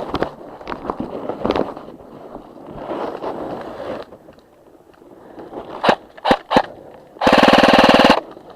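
Airsoft guns firing: a few single shots about six seconds in, then a loud full-auto burst with an even, rapid rattle lasting about a second near the end.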